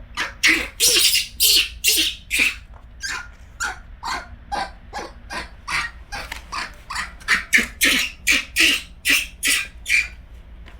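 A pet monkey giving a rapid run of short, sharp squeaky calls, about two to three a second, as it tries to rouse another monkey.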